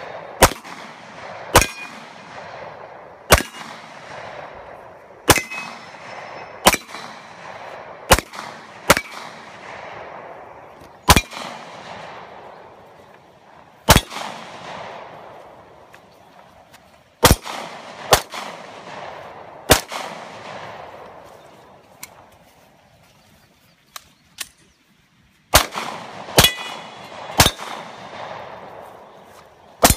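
Handgun shots fired one by one at an uneven pace, about fifteen in all, each followed by a ringing clang from the struck steel targets. Near the end there is a pause of a few seconds before three more quick shots.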